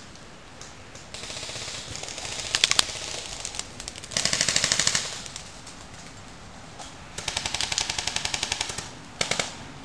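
Airsoft guns firing several full-auto bursts of rapid, evenly spaced shots, the loudest about four seconds in and shorter ones about two and a half seconds in and near the end.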